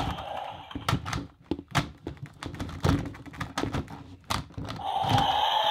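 Hard plastic toy dinosaur figures knocking and clacking against each other in quick, irregular knocks as they are bashed together. Near the end a steady droning sound comes in.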